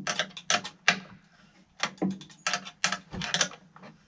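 Irregular clicks and light knocks of bolts, nuts and washers being handled and fitted through wooden boards on a hay press hopper, with a quicker cluster of clicks in the middle.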